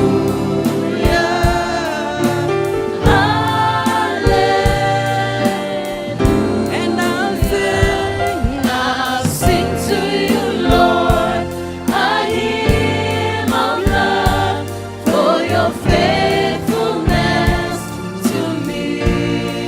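Church worship team singing a gospel song together, with band accompaniment and a steady drum beat.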